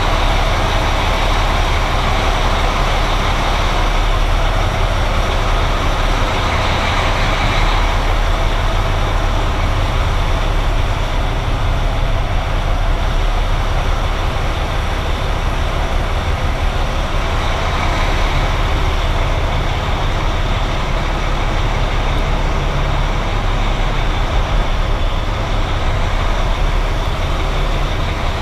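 Diesel engine of a freshly started semi truck running steadily.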